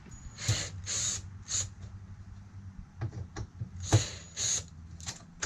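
Short scraping strokes and clicks of hand work on an RV door's striker plate as it is shifted forward, with one sharp click about four seconds in, over a low steady hum.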